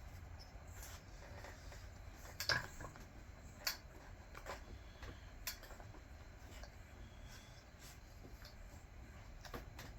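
Scattered light clicks and taps of hand tools and plastic parts being handled while a Stihl MS 200T chainsaw is taken apart, the loudest about two and a half seconds in, over a low steady hum.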